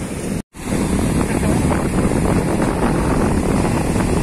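Sea surf breaking and washing up on a sandy shore, with wind buffeting the microphone; the sound drops out completely for a moment about half a second in, then runs on steadily.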